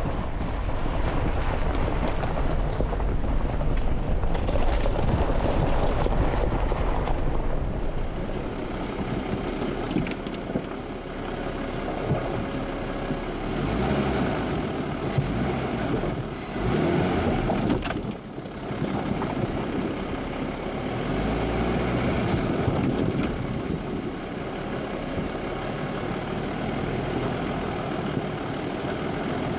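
A Jeep driving: engine and road noise that swells and eases in level.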